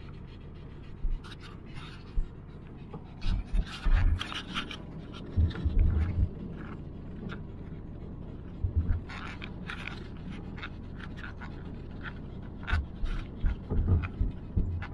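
Inside a car driving slowly on a rough dirt and gravel track: a steady low rumble of tyres and engine, broken by irregular knocks, thumps and rattles as the car jolts over bumps, in clusters about a second in, from three to six seconds, around nine seconds and again near the end.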